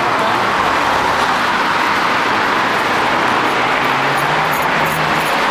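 Steady road-traffic noise from passing cars, with a faint engine hum near the end.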